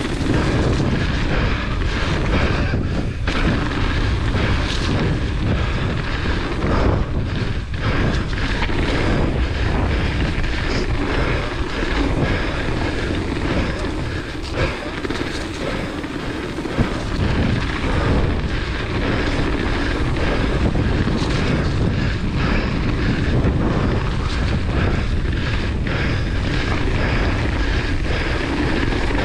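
Wind rumbling on an action camera's microphone and tyres rolling over a dirt trail as a hardtail mountain bike descends at speed, with constant rattling and knocks from the bike over roots and bumps.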